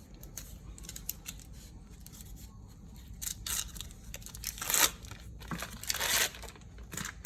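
Philadelphia cream cheese packaging being torn open and crinkled by hand: a series of short tearing and rustling sounds, louder in the second half.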